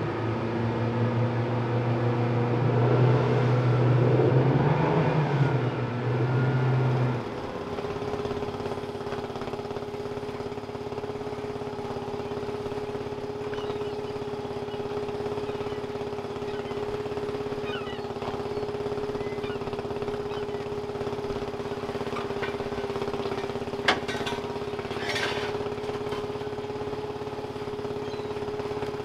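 Fishing boat's engine running hard under way, dropping suddenly after about seven seconds to a steadier, quieter run with a constant hum while crab pots are hauled in on the pot hauler. A couple of sharp knocks come near the end as a pot comes aboard.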